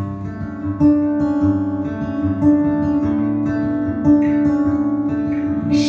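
Acoustic guitar playing a short instrumental passage of a slow country song, notes plucked about every second and a half and left ringing.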